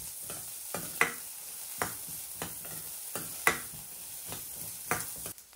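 Chopped beans and carrots sizzling in butter in a steel pan, stirred with a spatula that scrapes against the pan now and then over a steady high hiss.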